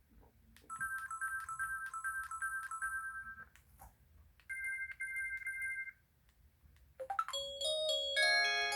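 Samsung Anycall SPH-V9500 folder phone playing its built-in alert tones through its small speaker. First comes a rapid repeating two-note beep, about three a second for nearly three seconds, then a shorter beep pattern. After a few clicks near the end, a fuller chiming melody starts.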